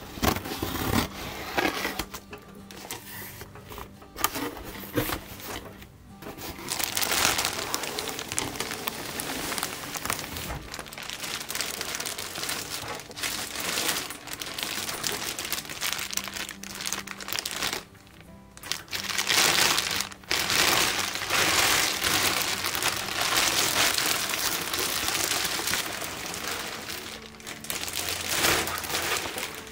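Packaging being crinkled and rustled by hand while a product is unboxed, in several long bouts with short pauses between them.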